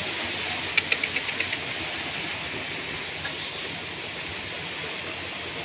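Steady hiss, with a quick run of about seven sharp ticks about a second in.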